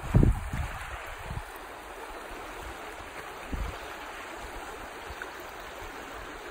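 River water rushing steadily over shallow rapids. A few low bumps on the microphone break in, the loudest just after the start and another about three and a half seconds in.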